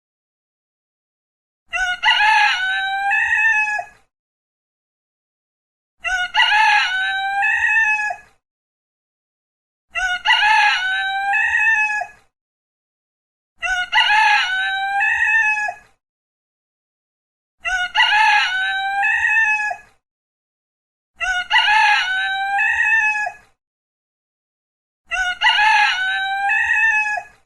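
A rooster crowing, seven cock-a-doodle-doo calls of about two seconds each, repeating every four seconds or so. The calls are all alike, with dead silence between them.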